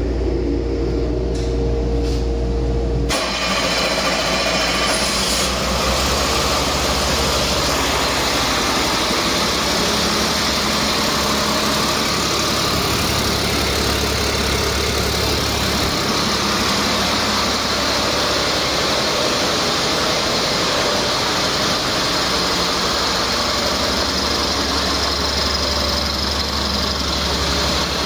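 Caterpillar C7 inline-six diesel engine running steadily at idle on a test stand. For about the first three seconds there is only a steady low hum, then the engine's full running noise comes in abruptly and holds steady.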